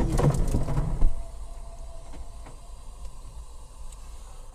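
A loud, noisy stretch that cuts off abruptly about a second in, then the steady low rumble of a car driving, heard from inside the cabin through a dashcam.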